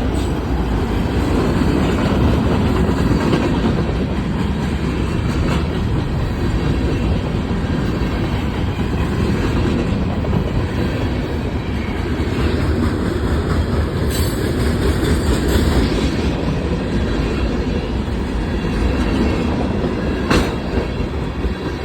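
Freight train cars rolling past close by, a steady heavy rumble of wheels clattering on the rails. About twenty seconds in comes one sharp, sudden bang, loud enough to startle.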